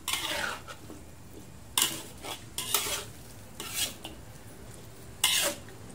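Metal spatula scraping and knocking against a wok while stirring a pumpkin and tripe curry, about six separate strokes.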